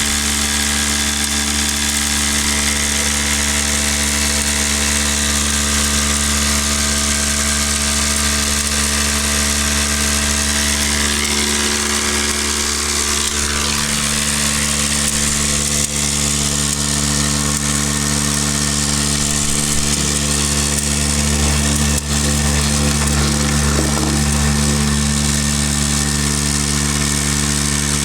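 Backcountry Tornado F2 electric drywasher running steadily: a constant motor hum under a dense hiss of dry material shaking down through the unit.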